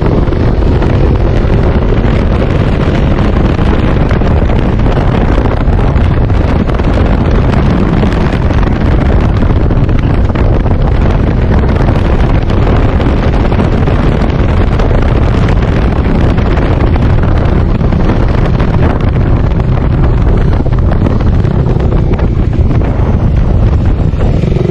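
Loud, steady wind buffeting on the microphone of a moving motorcycle at speed, with the bike's engine hum faintly underneath.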